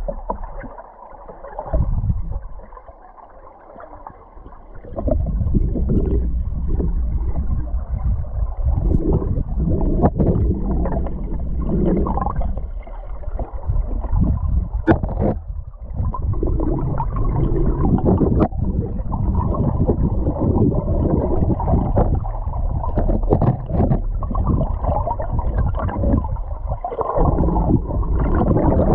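River water rushing and gurgling around an underwater camera, heard as a muffled low rumble that swells up about five seconds in and then runs steadily. A few sharp knocks stand out, as the rig bumps against the stones of the riverbed.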